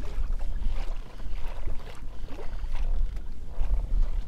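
Wind rumbling on the camera microphone over small waves slapping against a kayak's hull on choppy water.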